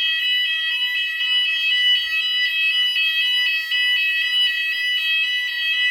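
Apartment building's fire alarm sounding: a loud, steady, high-pitched electronic tone with several pitches stacked together. It is a false alarm, set off by someone pressing it by mistake.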